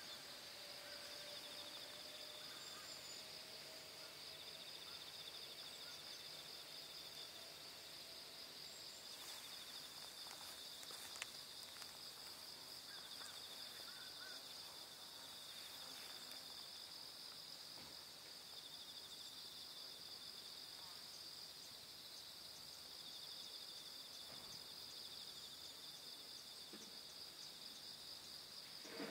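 Faint chorus of insects chirring in a steady, high-pitched pulsing drone, with a second insect song just below it starting and stopping every few seconds. A single sharp click about eleven seconds in.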